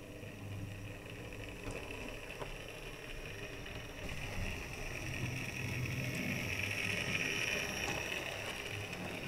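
Hornby 00 gauge GWR 14xx 0-4-2 tank locomotive's electric motor whirring steadily as the model runs along the track, with a few light clicks. It grows louder as the loco draws near, loudest about seven seconds in.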